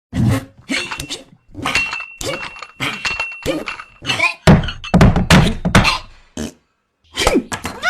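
A fast, irregular string of heavy thuds and knocks, played as comedy sound effects, with a steady high tone held for about two seconds in the first half. The thuds stop briefly about a second before the end, then start again.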